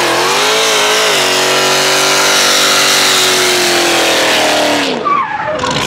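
A vehicle engine revved high. The pitch wavers up and down in the first second, holds high and steady for about three seconds, then drops away near the end.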